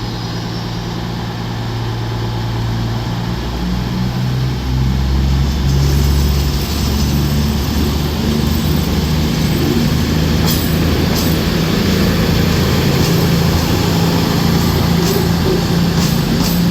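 A train running, its low engine note stepping up in pitch and growing louder over the first few seconds as it gathers speed, then holding steady, with a few sharp clicks about ten seconds in.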